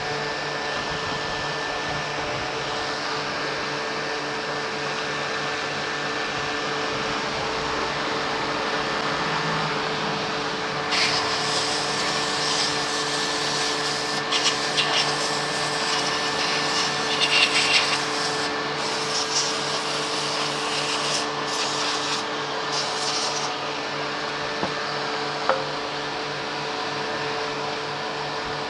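A steady motor or fan hum with a few faint steady tones. From about a third of the way in to near the three-quarter mark, intermittent hissing and scratchy noise stops and starts several times, from work on the scooter's brake caliper.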